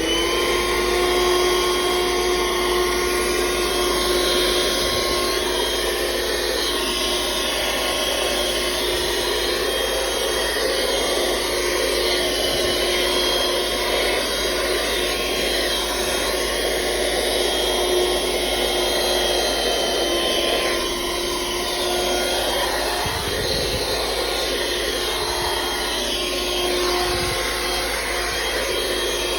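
Corded handheld car vacuum cleaner running with a steady high whine while cleaning car seats, its pitch and level dipping slightly about twenty seconds in.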